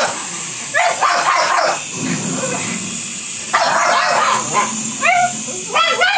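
Pugs barking in hoarse bursts, about a second in and again near four seconds, then a quick run of high, rising yelps near the end.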